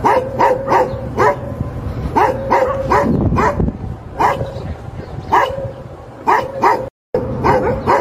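Labrador retriever barking repeatedly: about a dozen short, sharp barks at an uneven pace, some in quick pairs. The sound cuts out for a split second about seven seconds in.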